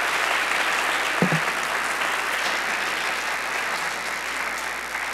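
Audience applauding in a lecture hall, a steady dense clatter of many hands that eases slightly toward the end, with a single brief thump about a second in.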